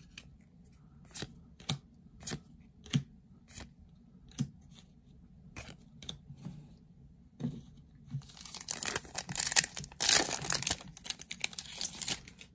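Yu-Gi-Oh trading cards being handled by hand: a run of separate sharp clicks and snaps as cards are flicked and set down, then from about eight seconds in a dense crinkling rustle, loudest around ten seconds in.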